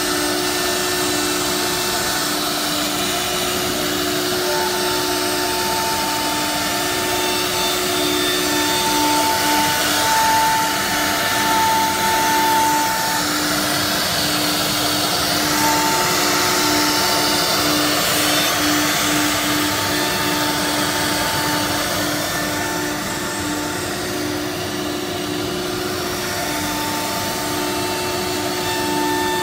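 Holztek R1325 3BF CNC nesting router working a panel: the spindle whines steadily over the rushing hiss of the dust extraction through the hood hoses. A higher tone comes and goes, and a lower tone stutters rapidly on and off through the middle stretch.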